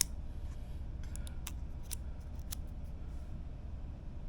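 Light clicks of small plastic and metal parts being handled inside an opened Asus Zephyrus G14 laptop: one sharp click at the start, then four or five lighter ticks over the next two seconds or so, over a low steady hum.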